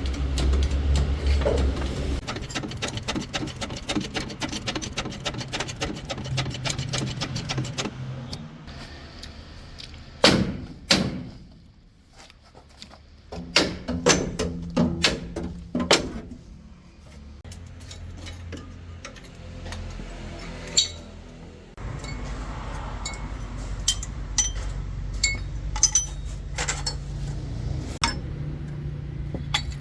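Metal tool work on a truck's suspension: a fast, dense metallic rattle for several seconds, then separate loud clanks, and later scattered sharp clinks over a low steady hum.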